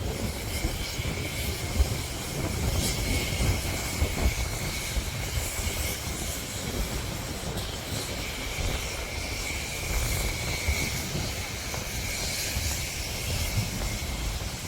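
Wind buffeting the microphone in an uneven low rumble, with a steady hiss above it.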